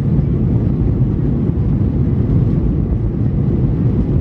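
Steady low rumble of a jet airliner's engines and airflow heard from inside the passenger cabin.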